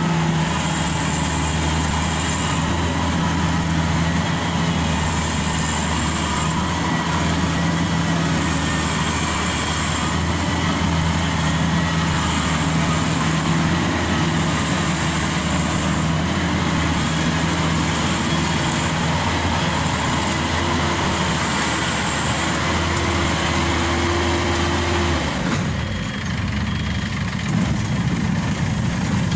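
Maxxi Bimo Evo Xtreme combine harvester's diesel engine running steadily. The engine note changes briefly near the end.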